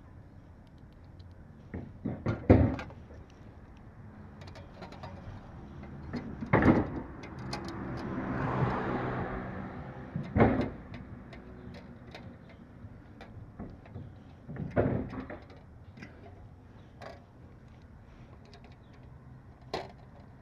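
Scattered knocks and clacks from handling a license plate and its bracket hardware. In the middle, a passing vehicle's noise swells and fades.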